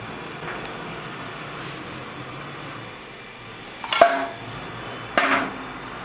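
Metal cookware struck twice, about a second apart, each knock ringing briefly, over a steady hiss.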